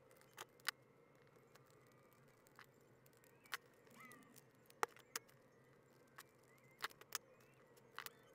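Scattered sharp clicks and taps of small metal hardware and tools against a plastic control box on a workbench, as toggle switches and controls are fitted back into the panel. The clicks come singly and at irregular intervals, with near silence between them.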